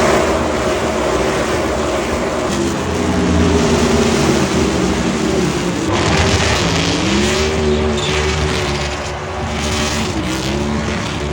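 NASCAR Cup Series stock cars' V8 engines running at racing speed, their pitch dipping about six seconds in and climbing again.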